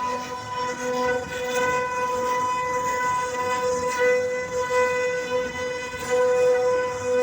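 CNC router spindle running with a steady high whine, its loudness rising and falling as the bit cuts into teakwood.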